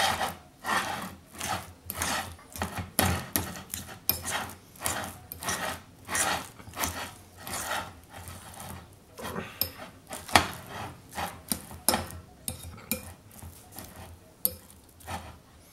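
A metal spoon scraping and knocking against a glass bowl while parsley butter is mashed and mixed by hand, in repeated strokes about two a second that thin out near the end.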